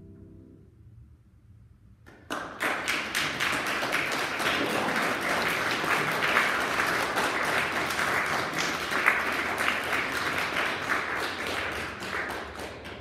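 The last chord of a grand piano dies away, and about two seconds later the audience breaks into applause, which carries on steadily and tails off near the end.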